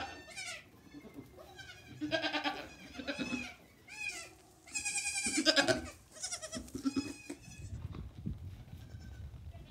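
Nigerian Dwarf goat kids bleating again and again, high-pitched, wavering calls that sometimes overlap, the loudest about halfway through and fainter ones near the end.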